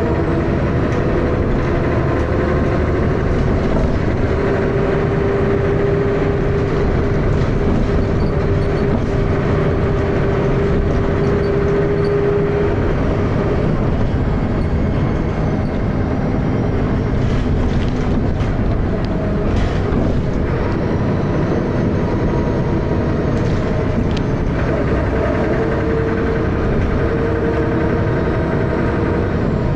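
Dennis Arrow double-decker bus heard from inside, its engine and drivetrain running hard under load with loud, steady thrash. A whine climbs slowly in pitch in the first dozen seconds and again near the end.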